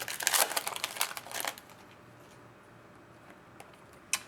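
Topps Chrome trading cards being flicked and slid through in the hand: a quick run of crisp clicks and rustles for about a second and a half, then quiet, then a single click near the end.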